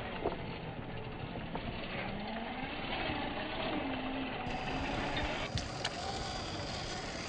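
RC rock crawler's electric motor and gear drivetrain whining, the pitch rising and falling with the throttle as it crawls over rocks. A few sharp clicks and knocks of the tyres and chassis on stone are heard.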